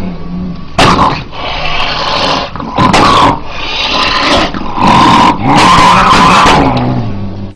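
An angry cat growling low, broken by about five loud hisses, with the sound cutting off suddenly at the end.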